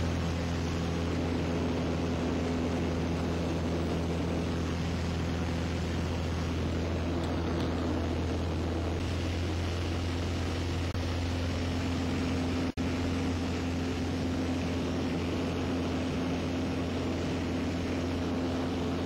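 Steady drone of a single-engine propeller airplane's engine and propeller, heard from inside the cabin in flight. The sound cuts out for an instant about two-thirds of the way through.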